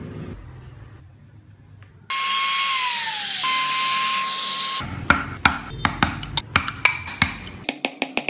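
Electric rotary carving tool running with a high whine from about two seconds in, its pitch sagging for a moment, then cutting off suddenly. Percussive music with sharp wood-block beats follows.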